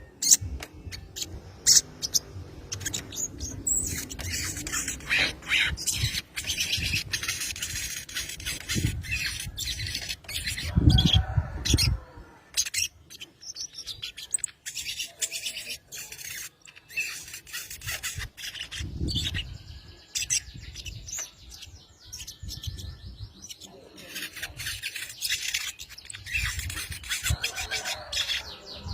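Sogon bird calling in rapid, sharp chips and chatters, the excited calls of a female in breeding condition calling a male. A low rumble cuts in about eleven seconds in.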